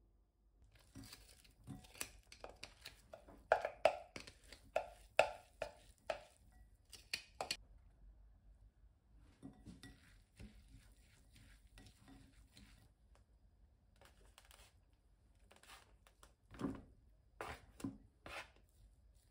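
A spatula scraping and tapping against a bowl while chopped cabbage and onion are mixed with potato starch, in irregular bunches of clicks and scrapes. Near the end come a few louder soft knocks as minced pork is tipped from a plastic tray into the glass bowl.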